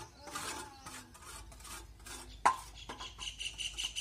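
Scraping and rustling of electrical cable being handled and fastened along a PVC pump pipe, with one sharp knock about halfway through. From about three seconds in, a bird chirps rapidly, several times a second.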